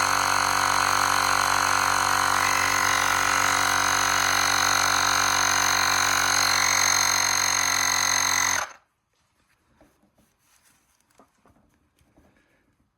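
Cordless portable tire inflator's compressor running steadily, pumping up a zero-turn mower's flat front tire toward about 20 psi, then stopping suddenly about eight and a half seconds in.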